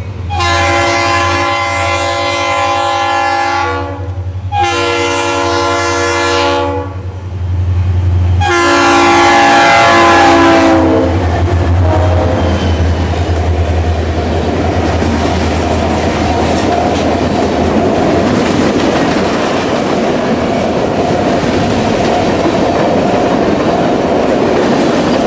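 Freight locomotive air horn sounding three long blasts, the third dropping in pitch as the lead locomotives pass. Then the EMD SD45-2 and SD40-2 diesel locomotives rumble by and the grain train's cars roll past with steady wheel noise.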